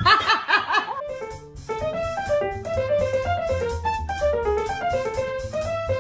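Background music: a melody of short stepped notes over a steady low bass.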